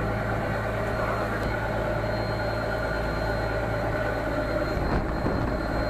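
Fishing boat's inboard engine running steadily, a constant low drone with a faint steady whine above it.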